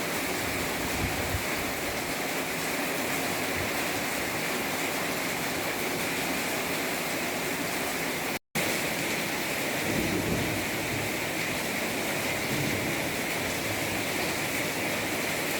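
Heavy rain pouring in a storm, a steady dense hiss. It cuts out for an instant about halfway through, and a few low rumbles come in during the second half.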